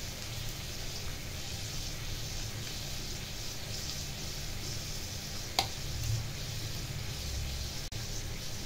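Steady background hiss with a low hum, with a single sharp click about five and a half seconds in.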